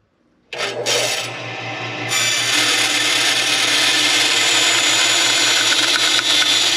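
Vertical bandsaw switching on about half a second in and running with a steady hum. About two seconds in, its blade starts cutting through a metal piano hinge with a loud, even rasping noise that carries on to the end, an easy cut.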